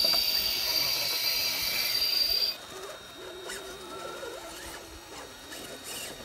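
Electric RC rock crawler's motor and drivetrain whining high and steady, with a hiss, as it creeps over rock. The whine cuts off abruptly about two and a half seconds in, leaving only faint background sounds.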